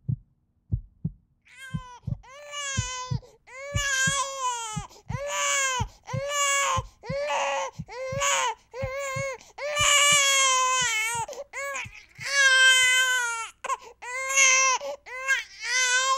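A steady heartbeat thumping, joined about a second and a half in by a newborn baby crying in repeated rising-and-falling wails that go on over it.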